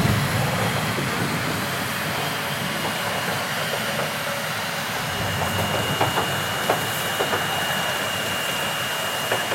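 Ol49 steam locomotive hissing steam steadily, with a thin steady high tone joining about halfway and a few light metallic clicks.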